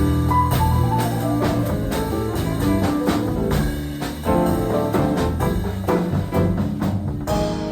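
Live jazz trio of piano, bass and drum kit playing, with busy drum and cymbal strokes over piano and bass lines.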